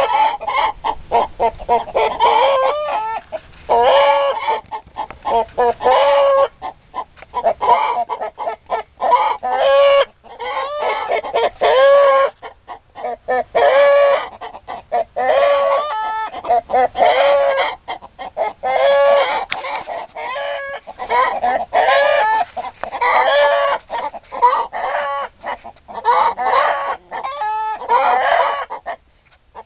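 Chickens clucking and cackling, one short call after another with brief pauses between.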